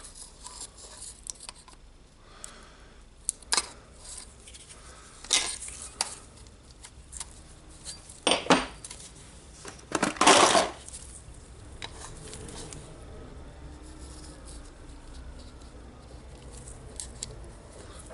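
Small metal clinks and knocks from hand tools working a seized ball bearing out of a Makita router's armature housing, several sharp strikes with the loudest about ten seconds in, then a quieter stretch of faint handling.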